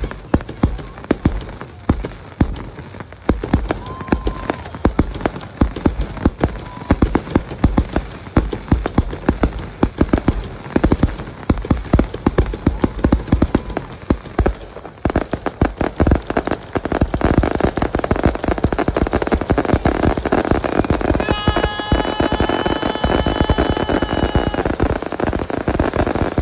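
Fireworks display: a rapid run of sharp reports from shells launching and bursting. From about sixteen seconds in it thickens into a dense, continuous crackling barrage. Near the end a steady high tone sounds for about three seconds over it.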